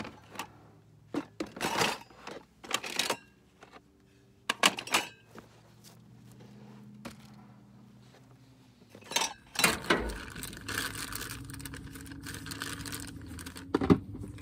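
Clatter and short knocks of plastic food containers and a wooden cutting board being handled on a truck tailgate, then a steady crinkling of a plastic bag as raw chicken is pulled from it, with one sharp knock near the end.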